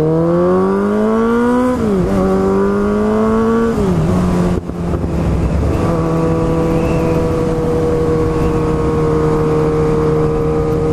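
2010 Kawasaki Z1000's inline-four engine through an aftermarket exhaust, rising in pitch under acceleration. It drops sharply at two upshifts, about two and four seconds in, then runs at a steady pitch while the bike cruises.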